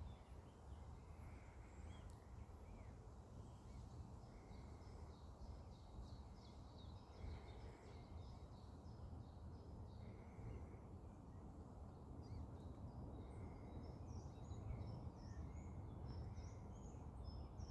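Faint high-pitched peeping of Eurasian coot chicks, many short calls coming thicker in the second half, with a lower short note repeating every few seconds, over a steady low rumble of outdoor noise.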